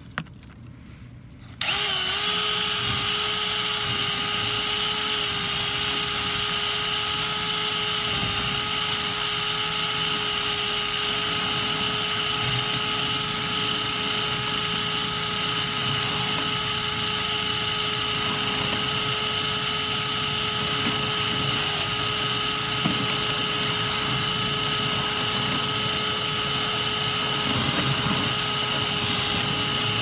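Power drill running at a steady speed with a high whine, spinning a rotary brush on a flexible rod to clear lint from a dryer vent duct. It starts abruptly about a second and a half in.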